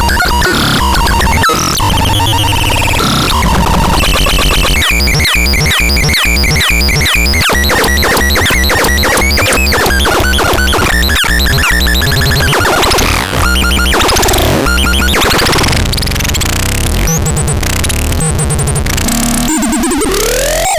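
Synthesizer producing harsh, chaotic electronic noise: a dense layer of buzzing tones with rapid pulsing patterns in the middle and sliding pitches, ending on a rising sweep.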